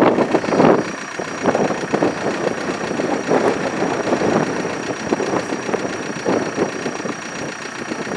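Vehicle engine running, heard from inside the vehicle, with irregular short knocks and rattles throughout and a faint steady high whine.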